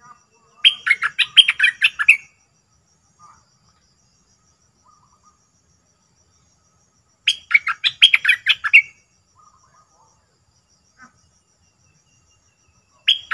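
A bulbul singing a quick phrase of about eight rapid notes, lasting about a second and a half. It sings it three times: about a second in, about seven seconds in, and again right at the end.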